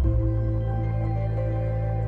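Soft ambient background music with sustained low chords, the chord changing right at the start.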